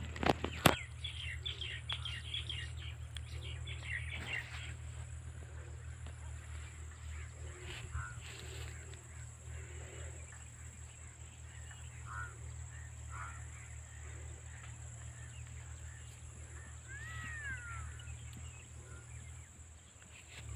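Field ambience of birds chirping: a quick run of short high chirps in the first few seconds, scattered calls later and one rising-and-falling call near the end, over a steady low rumble. Two sharp knocks sound right at the start.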